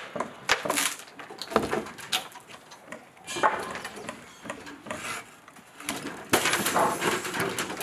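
Timber formwork being pried and knocked loose from a concrete slab: a series of separate wooden knocks and scrapes, then a longer stretch of scraping and rattling about six seconds in.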